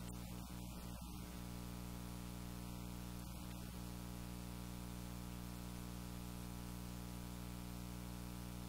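Steady electrical hum with several unchanging tones, under a constant hiss.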